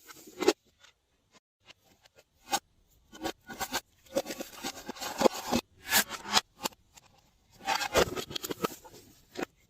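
Glossy slime being mixed by hand: bursts of sticky clicks and crackles as it is pressed and pulled, with quiet pauses about a second in and again a little after the middle.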